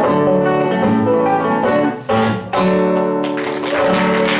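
Acoustic guitar playing the closing chords of a song, with no singing. Applause starts to rise near the end.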